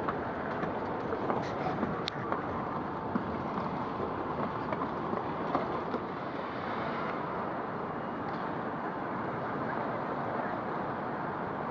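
Busy railway station platform under a big train shed: a steady wash of echoing background noise from people and trains, with a few scattered clicks and knocks.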